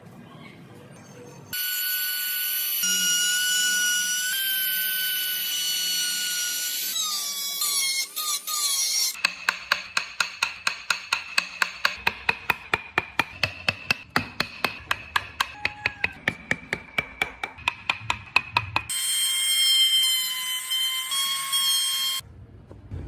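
Electric power tool running with a high steady whine, then winding down with falling pitch. This is followed by a run of rapid regular ticking, about four to five a second, under a high tone, before the whine returns near the end.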